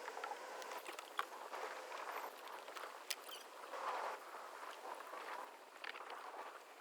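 Faint water sounds from a kayak moving while trolling: an uneven wash and sloshing against the hull, with a couple of sharp knocks, one about a second in and one about three seconds in.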